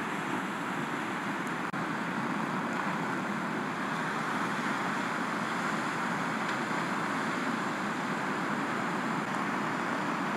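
Steady roar of breaking surf, an even rushing noise of waves in the shallows.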